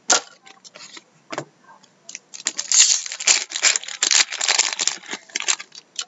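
Trading-card pack and cards being handled: a quick run of clicks and crinkling rustles, densest in the middle.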